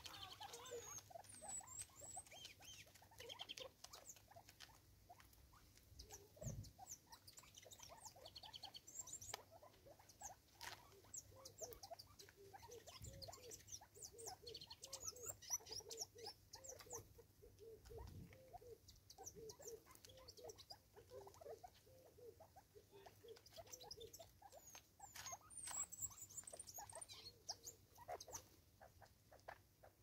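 Several francolins pecking at food on a wooden tree stump: a faint, busy patter of light beak taps and scratches. Soft low clucking notes run through the middle, and there are a few dull bumps.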